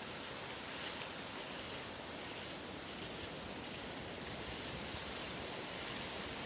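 Steady outdoor background noise with a high hiss and no distinct event.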